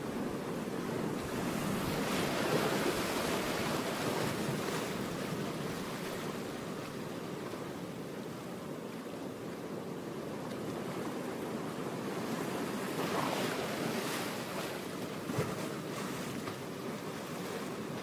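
Steady rushing noise with no pitch or beat, like surf or wind, swelling a few seconds in and again in the later part.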